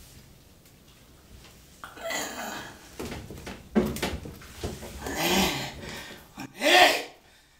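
A man's effortful grunts and hard, breathy exhalations as he strains to haul himself up in a bathtub. Several bursts come after a quiet start, and the loudest is a shouted 'Aller!' near the end.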